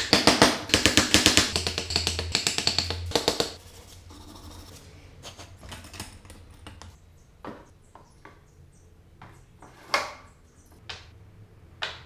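A flat metal hand file rasping in quick back-and-forth strokes across a small wooden piece clamped in a bench vise, stopping about three and a half seconds in. After that, a few light knocks and taps as the wooden piece is handled.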